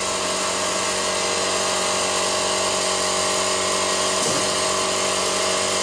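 ZXZ220 glass drilling machine running, with its lower drill motor and water pump switched on: a steady electric whine over a hum and a high hiss.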